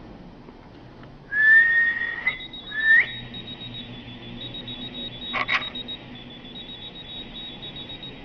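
A person whistles twice, a long whistle and then a short one, each rising slightly at the end. Meanwhile a whistle-activated key-finder keychain keeps up a high, rapid beeping. Two sharp clicks come a little past the middle.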